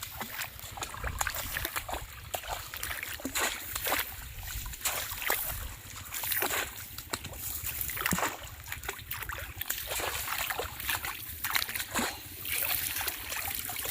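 Shallow water splashing and sloshing in uneven strokes as a bamboo polo fish trap is worked through it.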